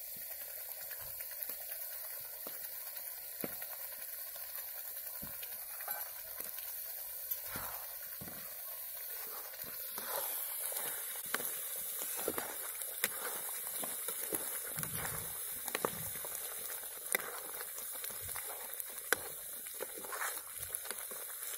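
Tomato-onion masala sizzling and bubbling in a steel kadai, a steady hiss. From about ten seconds in, a steel ladle stirs it, with repeated scrapes and clinks against the pan.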